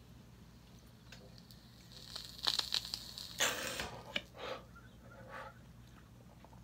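A hit drawn through a long glass smoking pipe: a faint hiss with fine crackling about two seconds in, a sharp rush of air about a second later, then a few softer breaths as the smoke is let out.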